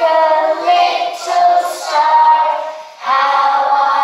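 Young children singing a song together in unison, with long held notes; the singing breaks briefly just before three seconds in, then carries on with the next line.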